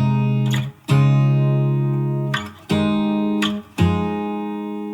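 Background music: an acoustic guitar intro, four chords each strummed and left to ring out, fading before the next.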